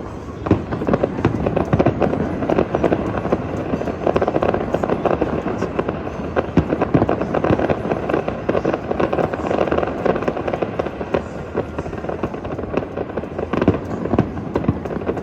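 Fireworks display: a dense, unbroken run of bangs and crackles from aerial shells bursting.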